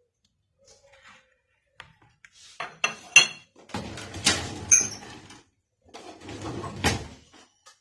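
Metal spoons and dishes handled in the kitchen: a few ringing clinks about three seconds in, then two stretches of scraping with knocks of spoon against bowl.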